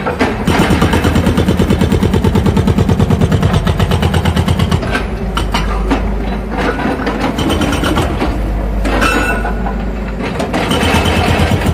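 Hydraulic breaker hammer on a JCB JS140 tracked excavator pounding a concrete floor slab, with the excavator's diesel engine running underneath. The first five seconds or so hold rapid, even blows, about nine or ten a second; after that the hammering turns uneven.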